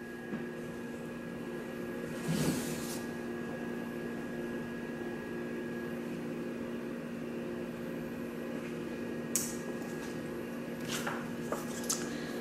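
A steady low hum with several fixed tones, over which comic books and their plastic bags are handled: a short rustle a couple of seconds in, a click later, and a few rustles near the end as a comic is slid out of its bag.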